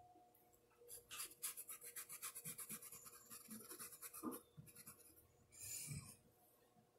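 Faint, quick scratchy strokes of a paintbrush rubbing over thin Oxford fabric, several strokes a second for a couple of seconds, with a few weaker scrapes later on.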